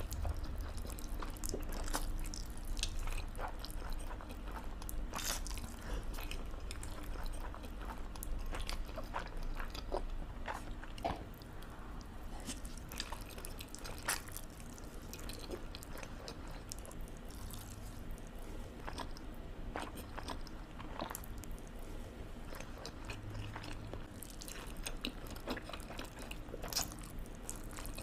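A person eating instant carbonara noodles close to the microphone: chewing and slurping, with many short, sharp wet mouth clicks and smacks.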